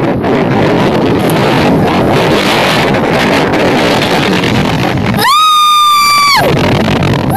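Steady noise of wind, water and a crowd, with people jumping into the sea. About five seconds in, a loud held tone with rich overtones breaks in for just over a second, sliding up at its start and down at its end; it starts again at the very end.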